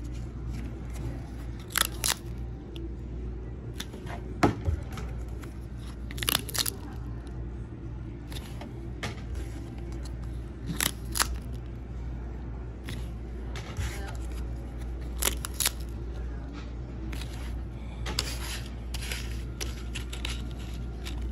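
Paper pull-tab tickets being handled and their perforated tabs ripped open: short sharp rips and rustles every second or two, some in quick clusters, over a steady low hum.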